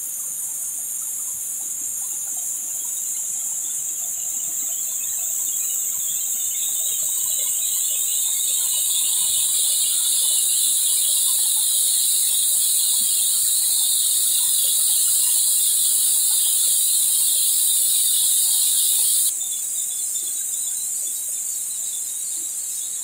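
Loud, steady high-pitched insect chorus buzzing from the surrounding trees, swelling over the first half and dropping suddenly to a quieter chorus near the end.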